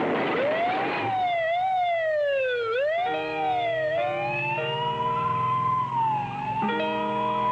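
Police car siren wailing, sweeping up and down in pitch, with theme music entering about three seconds in as held chords under it.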